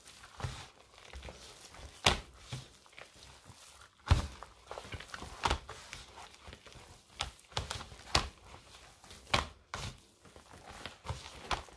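Soft dough of flour, butter, eggs and milk being mixed by hand in a bowl: irregular knocks and thuds, the loudest about two and four seconds in.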